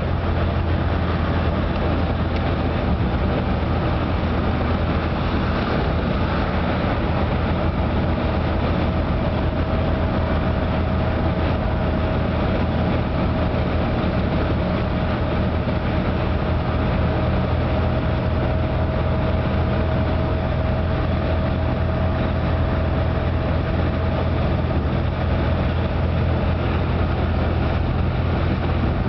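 Steady road and engine noise inside a car cruising on a highway: a constant low rumble of tyres and engine. A faint steady whine comes in for much of the middle stretch.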